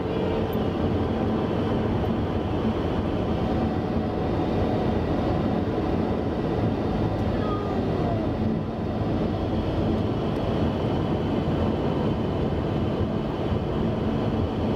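Steady road noise heard from inside a moving car's cabin: tyres running on the pavement and the car's engine at cruising speed, with no change in level.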